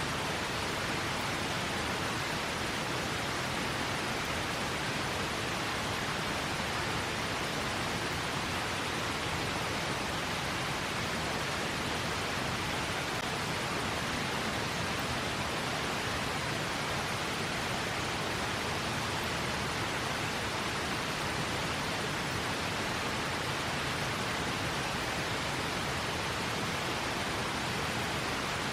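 A river rushing steadily, an even unbroken water noise.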